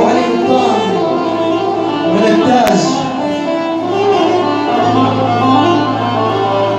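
Instrumental intro music for an ataba song: a melodic string line, with a steady low drone that comes in about five seconds in. There is a single sharp click a little before three seconds in.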